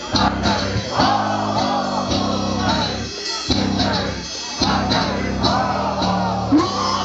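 Live metal band playing loud: sustained guitar and bass chords under drums with regular cymbal hits, and a singer's vocal line over the top.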